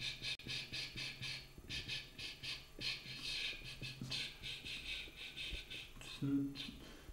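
A man stuttering on the 'sch' at the start of the surname Schneider, repeating short hissing 'sch' sounds into a microphone at about five a second, in several runs with brief pauses between them, as a speech block.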